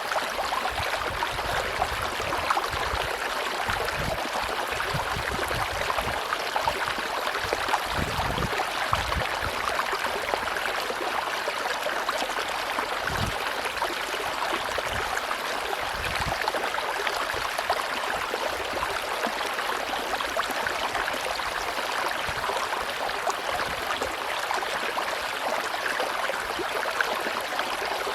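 River water rushing steadily over a tropical stream, an even hiss and gurgle, with a few brief low rumbles.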